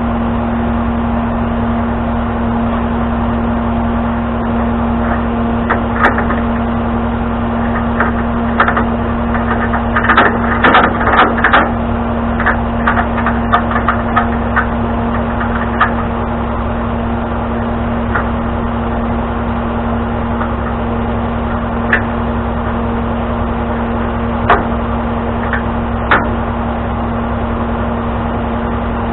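Tow truck engine running steadily with a constant hum, while scattered metallic clanks and knocks come and go, a cluster of them about ten to twelve seconds in.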